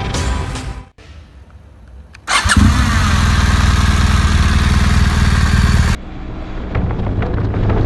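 BMW R1200GS boxer-twin motorcycle engine starting a little over two seconds in with a short rev, then running steadily at idle. Near the end it cuts abruptly to a quieter engine sound.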